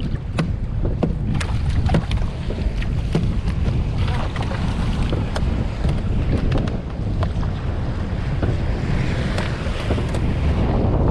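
Wind buffeting the microphone over a steady low rumble of the small boat and the sea, with scattered sharp clicks, several in the first half.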